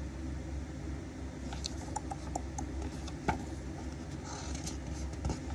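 Faint rustling and small ticks of paper as the pages of a book are handled and turned, over a steady low room hum.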